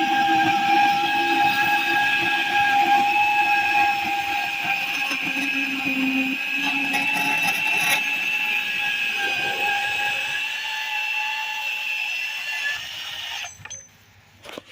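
Power saw cutting through the metal of an old rusty bicycle frame: a steady whine of the blade on the steel that stops suddenly about 13 seconds in.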